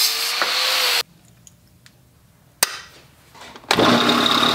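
Angle grinder cutting through a 5/8-inch steel bolt clamped in a vise, a loud grinding whine that stops abruptly about a second in. After a quiet pause and a single click, a belt sander starts up near the end with the cut bolt held against its belt.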